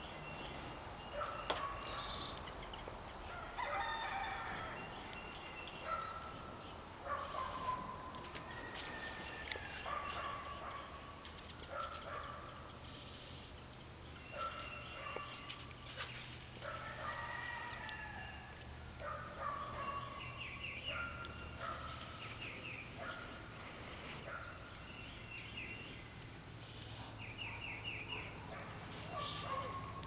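Several wild birds calling around a backyard: short high chips repeating every few seconds, quick trills and lower sliding whistled notes, overlapping from different birds.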